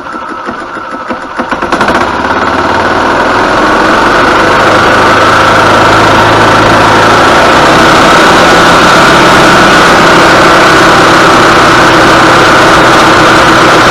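Yamaha G16 golf cart's single-cylinder four-stroke engine cranked by its starter-generator, catching about two seconds in and then running steadily and loud.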